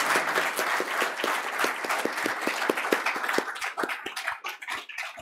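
Audience applauding, the clapping thinning out to a few scattered claps near the end.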